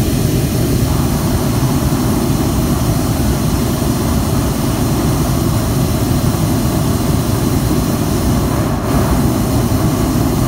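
Hot air balloon's propane burner firing in one long, steady blast, heating the air in the envelope.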